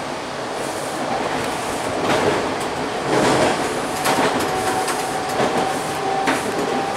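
TTC T-1 subway train running, heard from inside the lead car as it pulls out: a steady rumble of wheels on rail with several sharp clacks over the track. A steady whine joins about four seconds in.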